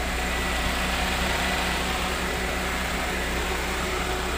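Mitsubishi Lancer engine idling steadily with the air-conditioning compressor engaged, heard at the open hood. The engine holds its idle under the compressor's load.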